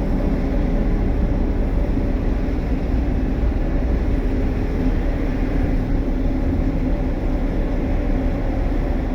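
A vessel's diesel engine running steadily during an unberthing manoeuvre: a constant low rumble with a steady droning hum and an even hiss over it.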